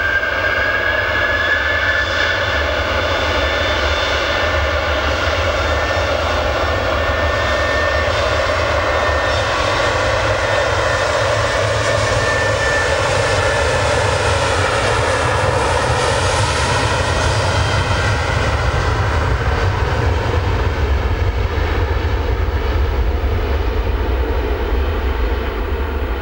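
Boeing 737-700's CFM56-7B turbofan engines at takeoff thrust during the takeoff roll. A fan whine climbs in pitch over the first couple of seconds as the engines spool up, then holds over a steady jet roar. The jet is loudest as it passes about halfway through, and the whine drops in pitch as it moves away.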